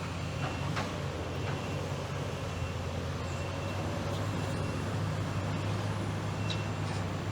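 Steady low drone of a motor vehicle's engine and road noise while moving, with a few faint ticks.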